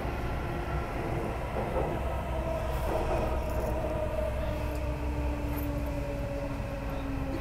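Delhi Metro train heard from inside the carriage: a steady low rumble with a motor whine that slowly falls in pitch as the train slows into a station.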